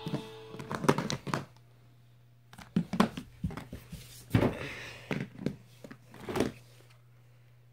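Phones being handled on a wooden floor: a run of knocks, clicks and light clattering as handsets are picked up, moved and set down, in several short clusters with quiet gaps between.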